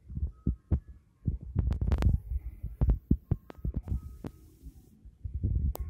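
Irregular low thumps and scattered clicks of handling noise on a handheld recorder's microphone as it is moved.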